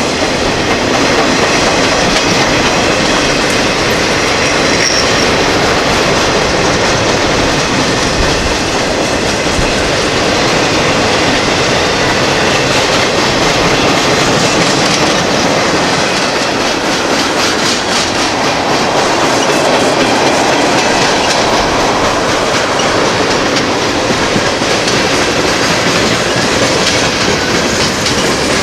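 A CSX freight train's cars rolling past at speed: a steady, loud noise of steel wheels on rail.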